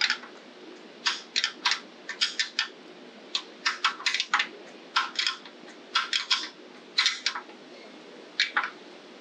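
Ratcheting combination wrench clicking as it is swung back between strokes to tighten a nut, in short runs of two to four clicks about once a second, stopping near the end.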